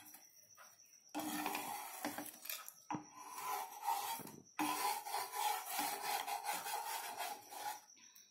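Wooden spatula scraping under the edges of a thin wheat-flour chilla on a dry nonstick pan, loosening it from the pan. It starts about a second in and goes on as a series of rasping strokes with short pauses.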